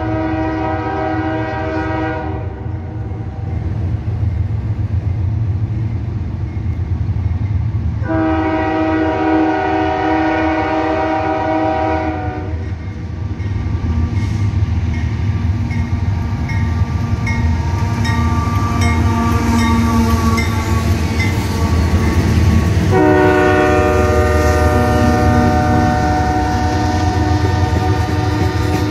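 CSX GE AC4400CW diesel locomotive sounding its air horn in long chords of several notes at once: one ending about two seconds in, another from about eight to twelve seconds, and a third starting near the end as it reaches the camera. Under the horn runs the steady low rumble of the locomotives' diesel engines, growing louder as they approach, with wheel clatter as they pass close by at the end.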